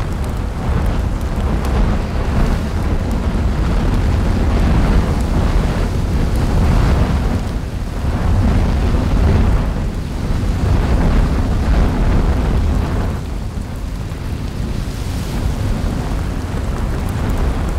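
Low, continuous rumble and roar of a lava fountain erupting from a volcanic crater, surging in waves, easing off for a moment about two-thirds of the way through.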